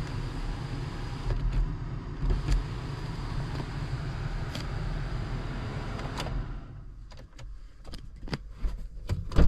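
The 2.0 diesel of a 2017 Land Rover Discovery Sport being cranked on the starter without firing, a steady low churning for about six and a half seconds that then stops: the engine won't start. Several light clicks and a sharp knock follow near the end.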